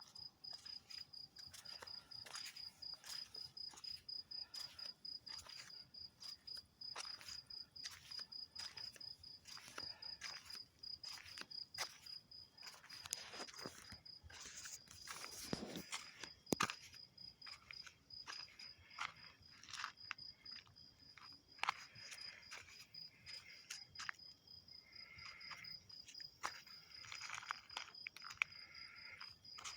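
An insect trilling steadily, a high-pitched call in rapid even pulses. Scattered clicks and rustling sound over it, with a louder knock about halfway through.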